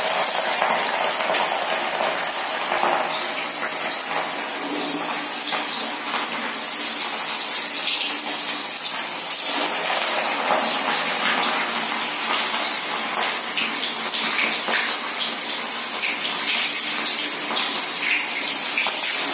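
Clam-meat vadas deep-frying in hot oil in a kadai: the oil sizzles and bubbles in a steady crackling hiss.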